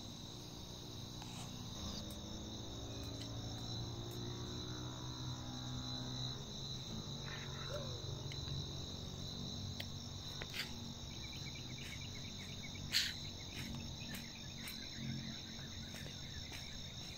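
Steady high-pitched insect trilling from the surrounding vegetation, holding one even tone throughout. Scattered faint ticks run through it, with one sharper click about thirteen seconds in.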